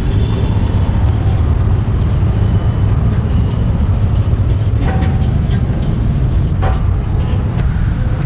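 Steady city street traffic noise, a constant low rumble, with a few light clicks about five and seven seconds in.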